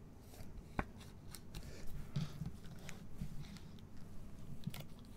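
Gloved hands handling clear plastic card holders and cased trading cards on a table: scattered light clicks, taps and plastic rustling, with a sharper click just under a second in.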